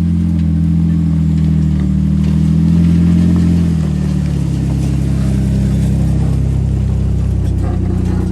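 4x4 off-road vehicle engine working under load while crawling an obstacle, held at a steady speed and then easing down to a lower speed about four seconds in.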